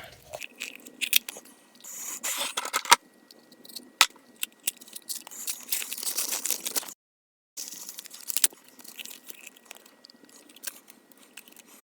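Hand-made plug follower being shaved down to fit a lock cylinder: stretches of rasping, scraping strokes with sharp clicks and taps between them.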